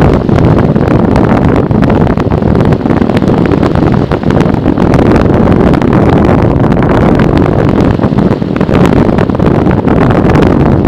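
Wind rushing over the microphone of a camera riding on a model aircraft in flight: loud, steady buffeting, with no clear motor tone.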